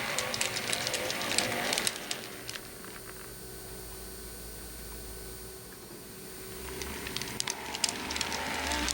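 Model train running on the track: the wheels click over the rail joints with a whir of motor and gears. The sound fades away about two seconds in, then builds again near the end as a train comes close once more.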